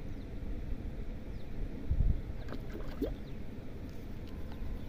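Wind rumbling on the microphone at the riverbank, with a louder low thump about two seconds in and a few faint high chirps just after.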